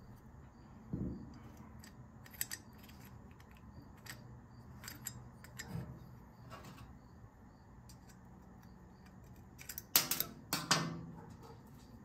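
Light metallic clicks and taps of a screw-type valve spring compressor being wound back down on a small-engine cylinder head while the valve keepers are refitted, with a few louder metal clinks about ten seconds in.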